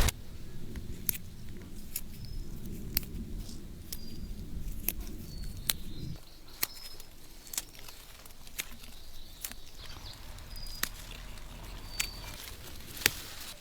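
Sharp, irregular clicks and snaps, roughly one a second, with a few faint short high chirps between them. A low rumble underneath stops suddenly about six seconds in.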